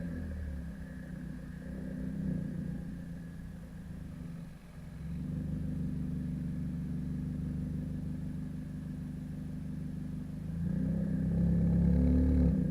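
2011 Kia Forte EX's four-cylinder engine and exhaust running with a steady low note. It briefly dips about four and a half seconds in and gets louder near the end.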